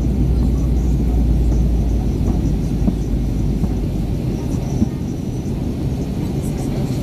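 Steady low rumble of an Airbus A321-211's CFM56 jet engines and rushing airflow, heard from inside the passenger cabin as the airliner descends to land. The deepest part of the hum fades about four seconds in.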